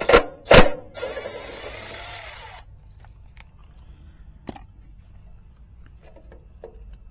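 Two loud sharp metallic snaps close together, then a metallic ringing rattle lasting about a second and a half, followed by a few faint clicks.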